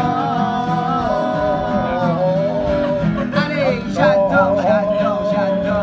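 Music: a song with a long-held sung melody over guitar accompaniment.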